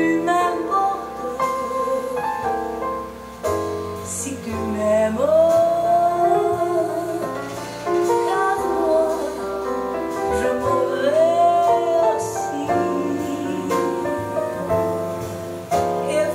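Music: a slow sung ballad, with a voice holding long, wavering notes over instrumental accompaniment.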